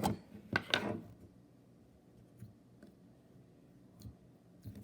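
Plastic slime container being handled: a few sharp clicks in the first second, then a few faint taps over quiet room noise.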